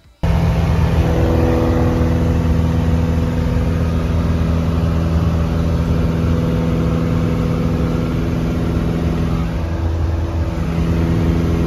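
Piper Cherokee's piston engine and propeller droning steadily in flight, heard from inside the cabin. The sound starts and stops abruptly.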